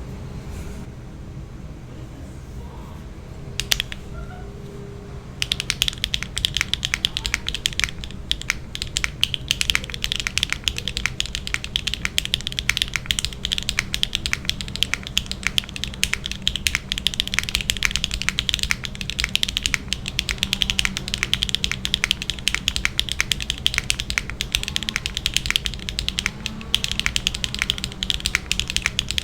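Fast, continuous typing on a mechanical keyboard: HMX Emo switches under PBTfans Klein Blue R2 ABS doubleshot keycaps on a carbon-fibre plate with no foam. After a single keystroke, the rapid clacking starts about five seconds in, over a low steady hum.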